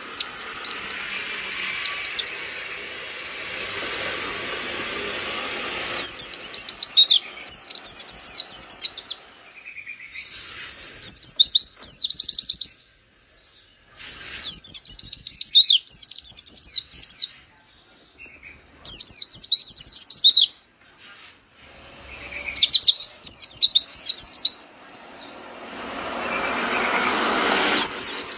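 Caged white-eye (pleci) singing in about seven rapid bursts of fast, sharply sweeping high chirps, each burst lasting a second or two with short pauses between. A faint steady noise sits under the song at the start and again near the end.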